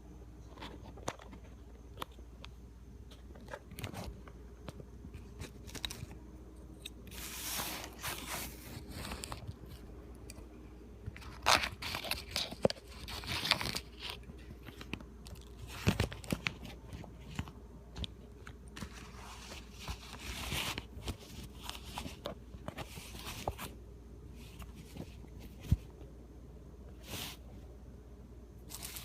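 Small plastic parts handled up close: scattered clicks and taps with short spells of scraping and crackling, as the cut-open mirror puddle light housing is worked on and fitted back together.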